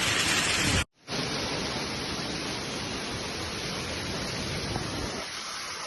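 Heavy rain and wind making a steady rushing noise. It cuts out abruptly about a second in, then resumes as a duller rush of rain.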